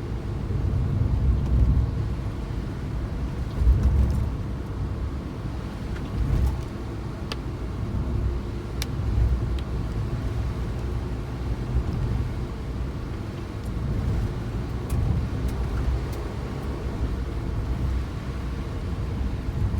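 Suzuki Jimny on the move: a steady low rumble of engine and road noise, with a few faint clicks.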